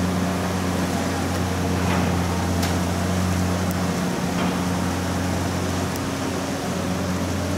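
Muddy floodwater rushing through a river narrowed by steel sheet piles, with an even hiss, under a steady low hum from a running engine.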